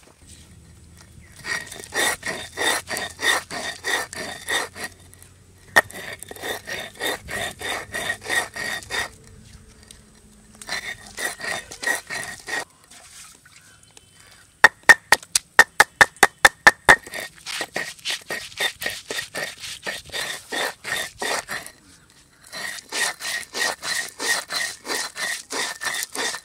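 Rhythmic scraping strokes, about three to four a second, in several runs: a stone roller worked back and forth on a flat stone grinding slab (sil-batta), grinding ginger and garlic into paste, after a knife slicing tomatoes on a wooden board at the start. Around the middle comes a quick run of sharp, loud knocks.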